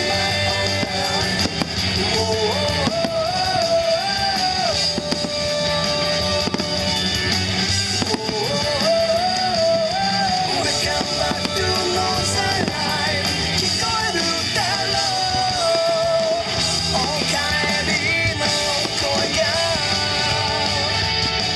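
A song with a singing voice and rock-style band accompaniment plays loudly and steadily throughout. Fireworks shells burst and crackle underneath it.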